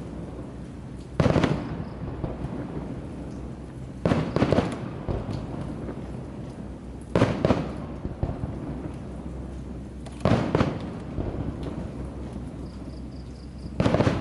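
Aerial firework shells bursting: five loud bangs about three seconds apart, each followed by a short fading tail of smaller cracks.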